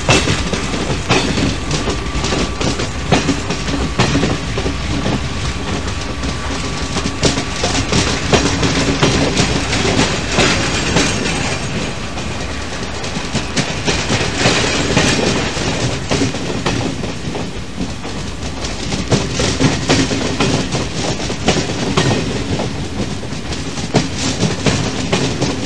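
Local commuter train running on the rails, with a steady rumble and the wheels clacking over rail joints.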